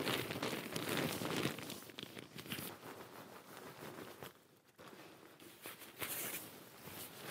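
Rustling and crinkling of camping gear being packed up by hand, with small irregular clicks and taps. It dies down briefly about four and a half seconds in, then picks up again.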